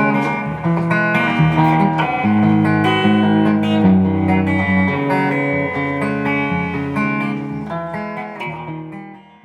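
1986 Fender Contemporary Telecaster electric guitar being played: strummed chords and picked notes that ring on, fading out over the last second or two.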